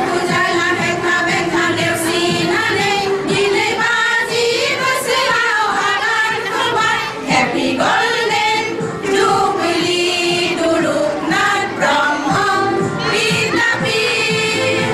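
A group of women singing a song together into microphones.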